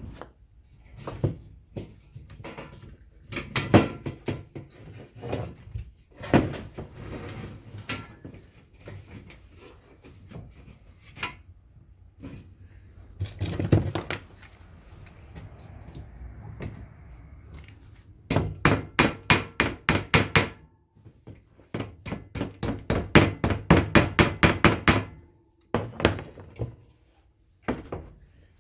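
Workshop handling noises: scattered knocks and clatter of parts and tools, then two runs of quick, even hammer taps, about five a second, the second run longer and falling about two-thirds of the way in.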